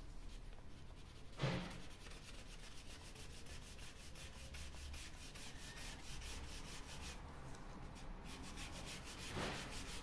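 Dual-tip marker rubbing across unfinished wood in quick, even back-and-forth strokes, faint. A soft thump about a second and a half in.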